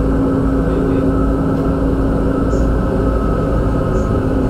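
Manila MRT Line 3 train running: a steady rumble with a constant low hum and a fainter higher hum.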